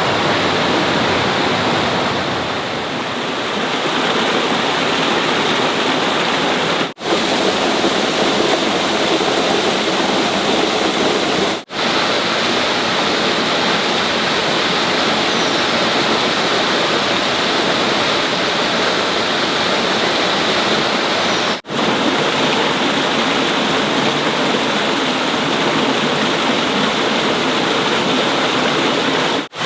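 Steady rushing water noise, the sound of heavy rain or flowing water, broken by brief dropouts three times.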